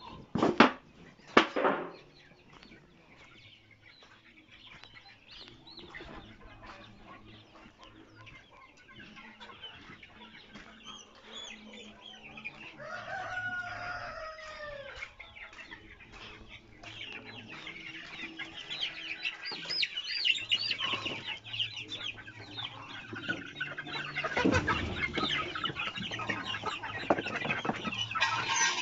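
Chickens clucking and calling, the flock growing louder and busier in the second half, with a rooster crowing once about halfway through. Two sharp knocks near the start are the loudest sounds.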